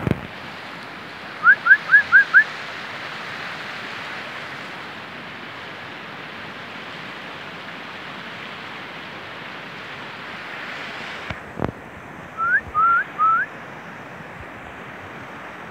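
Wind blowing across the microphone, with two runs of short rising whistles: five quick ones about a second and a half in, and three more about twelve and a half seconds in. A brief knock at the very start and another at about eleven and a half seconds.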